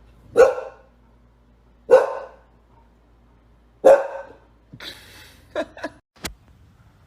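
Dog barking: three loud single barks about two seconds apart, followed by a few softer, shorter sounds and a sharp click near the end.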